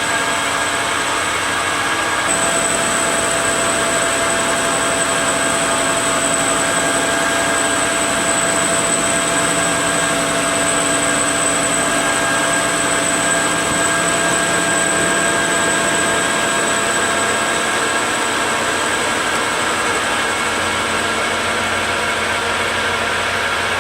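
Metal lathe running steadily while turning an aluminium pulley: a continuous machine noise with a steady whine, and a high-pitched tone that comes in about two seconds in.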